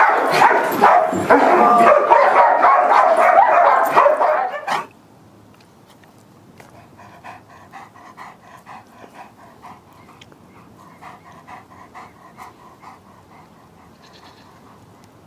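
Excited dogs whining, yipping and barking loudly for about the first five seconds, then a sudden cut to a faint outdoor background.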